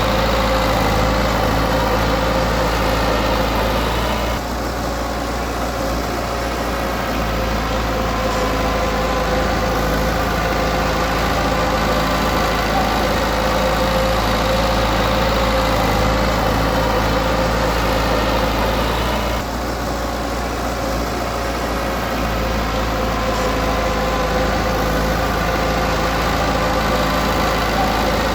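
Diesel engine of a heavy earthmoving machine running steadily at work. Twice, about four and about nineteen seconds in, the engine note drops for a couple of seconds before picking up again.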